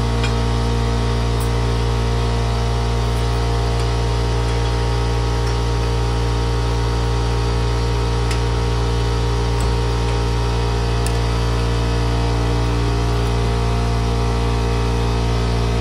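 A steady mechanical hum with a deep drone and several steady tones, unchanging throughout, with a few faint ticks.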